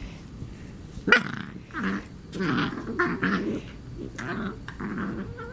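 Wirehaired dachshund puppy growling in play: a string of about six short, odd growly vocalisations starting about a second in.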